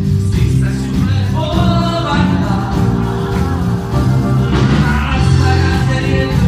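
Live blues band playing: a man sings over a strong bass line from an electric upright bass, with electric guitar, keyboards and drums.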